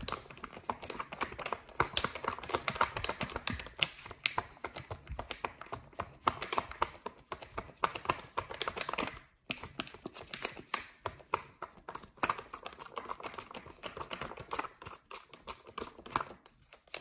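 Paper page of a hardcover book flapped rapidly back and forth, a fast, continuous run of paper slaps and flutters, with a brief break about nine seconds in.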